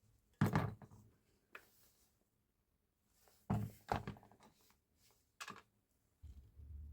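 Five short knocks and clunks, as of hard parts being handled and set down on a workbench, the loudest a pair about three and a half seconds in, followed by a faint low rumble near the end.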